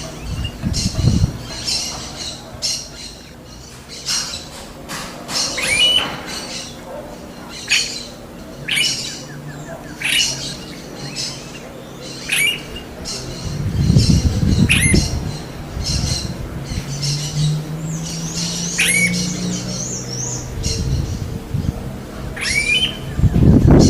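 Smooth-billed ani calling repeatedly: short squawking calls, several ending in a rising whine, every second or two. Low rumbles come in around the middle and near the end.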